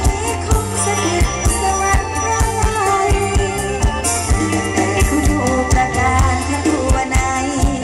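Live Isan mor lam band music: a steady drum-kit beat, about two drum strokes a second, under a melody line.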